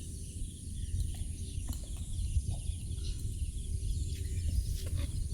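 Outdoor rural ambience: a steady low rumble with faint bird calls and a few light clicks.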